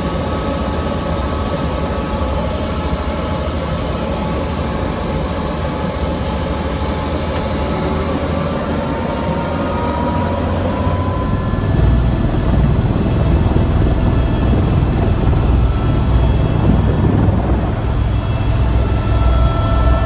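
Turbine whine and rotor noise of a tour helicopter, heard from inside the cabin. A tone climbs in pitch about halfway through, and the deep rotor sound then grows louder as the helicopter powers up and lifts off.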